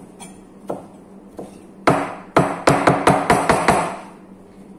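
Kitchen knife chopping leafy greens on a plastic cutting board. A few light cuts come first, then a quick run of about eight sharp chops starting about two seconds in.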